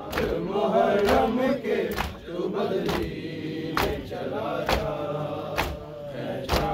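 A group of men chanting a Muharram noha in unison while doing matam, beating their chests with their open hands. The strikes come together in a steady rhythm, about one a second, under the chant.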